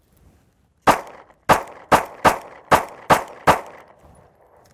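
Seven pistol shots from a dirt-fouled Smith & Wesson Shield semi-automatic, a first shot followed by six more at about two to three a second, each with a short ringing tail. The pistol is running again after a drop of oil on its slide rails and magazine.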